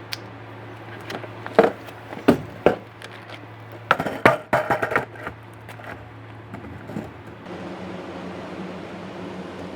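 Skateboard knocking and clacking on pavement: a few single sharp knocks, then a quick cluster of clacks, then steady wheel-rolling noise from about seven and a half seconds in.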